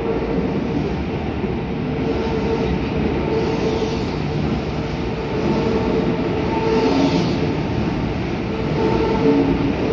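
Kintetsu 80000 series "Hinotori" limited express electric train rolling slowly along an underground platform. Its wheels and running gear make a steady rumble, with a tone held through it, echoing off the station walls.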